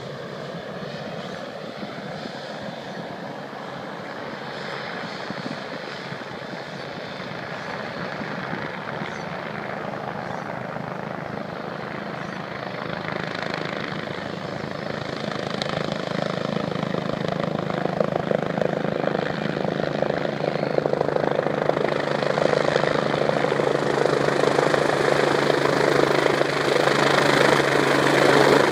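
Air-ambulance helicopter approaching to land: steady rotor and engine noise growing louder throughout as it descends overhead.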